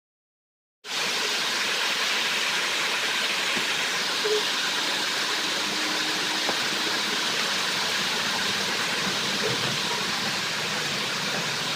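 Steady, even hiss of noise that starts abruptly about a second in after dead silence and holds unchanged.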